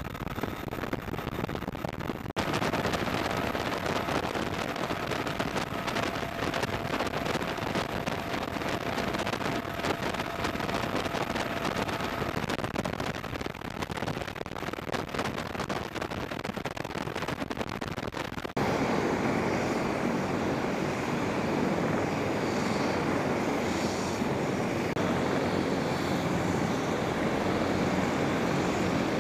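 Steady rush and whine of military turbine engines and rotors from Marine MV-22 Osprey tiltrotors and UH-1Y and AH-1Z helicopters. The sound changes abruptly twice, about two seconds in and about two-thirds of the way through, where it becomes louder and fuller.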